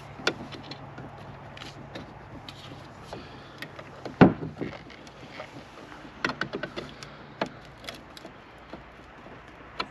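Scattered clicks and taps of a screwdriver and hands working at a boat's steering wheel hub and helm dashboard, with one sharp knock about four seconds in.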